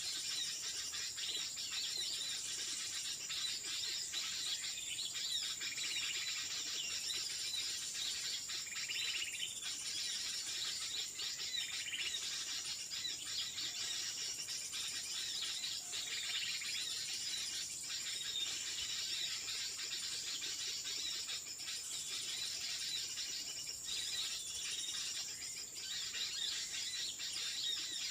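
Forest ambience: a steady, high-pitched insect drone with many small birds chirping and calling throughout.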